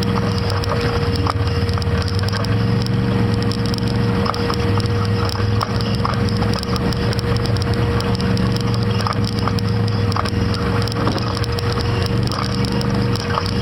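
Quad ATV engine running steadily at low speed with a constant whine, over a stream of rattles and knocks as the machine rolls across a rocky trail.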